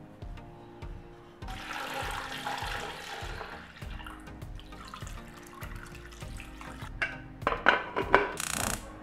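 Background music throughout. About a second and a half in, a rushing noise lasting about two seconds; near the end, several sharp metal clanks and a short scrape as the aluminium pressure cooker's lid is put on and closed.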